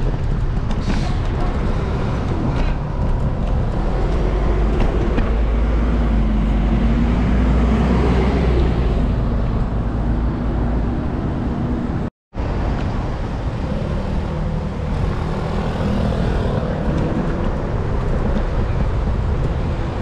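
City street traffic: cars and other vehicles running past, with a steady deep rumble and an engine hum that wavers in pitch around the middle. About two-thirds of the way through, the sound cuts out completely for a split second.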